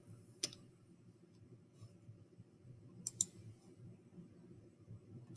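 A few faint computer mouse clicks: a single click about half a second in and a quick pair of clicks about three seconds in.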